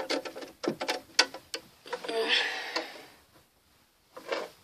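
Handling noise: a run of light plastic clicks and knocks, then a rustling scrape about two seconds in and another knock near the end, as a small plastic pet cage and the phone are moved about.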